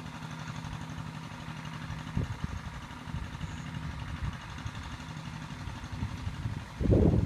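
A small engine running steadily, heard as a low, even hum, with a louder low rumble near the end.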